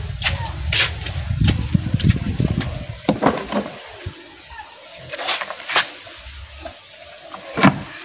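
Plastic poultry drinker parts knocking and clicking as a red drinker top is handled and fitted down over a white drinker base, with the sharpest knock near the end. A low rumble fills the first few seconds.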